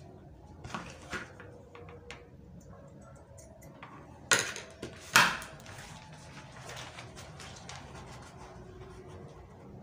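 Scissors snipping through leather, with two loud sharp cuts or knocks about four and five seconds in, then light rustling and clicking as fabric is handled and rolled.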